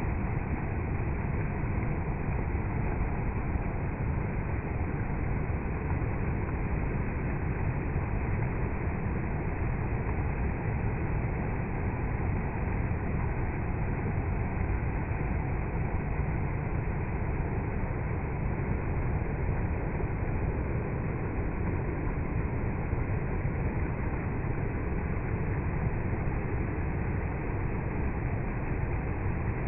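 Water flowing in a steady, unbroken rush.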